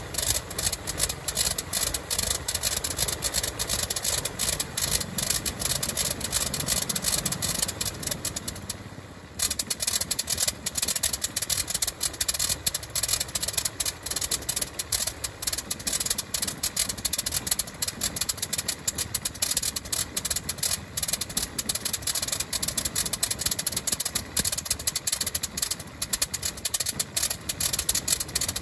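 Freshly overhauled 120 hp Le Rhône nine-cylinder rotary engine of a Fokker Dr.I triplane running on its first run, a fast, even, rattling stream of firing pulses. The sound drops away briefly about nine seconds in, then picks straight back up.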